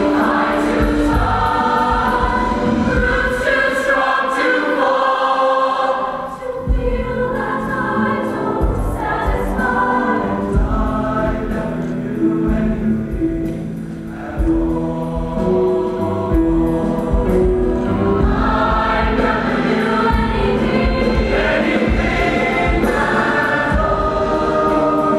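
Mixed show choir of male and female voices singing a slow ballad in sustained chords. The singing softens briefly about six seconds in and again around fourteen seconds, then swells back.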